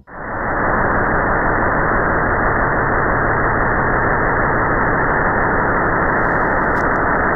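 Steady, even rushing noise with no tones or rhythm that starts abruptly and holds level: a star sonification played as the sound of the Sun.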